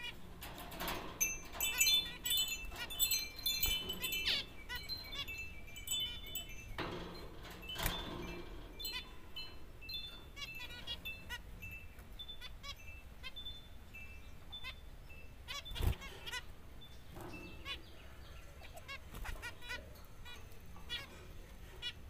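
Caged zebra finches calling: a quick run of short, high beeping calls in the first few seconds, then scattered calls. A single sharp knock comes about three-quarters of the way through.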